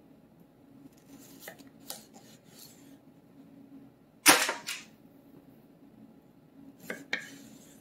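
Sharp knocks and clicks of a chef's knife cutting fingerling potatoes in half against a wooden cutting board, with the halves being set on a parchment-lined sheet pan. The loudest knock comes a little past the middle, with a quick pair of knocks near the end.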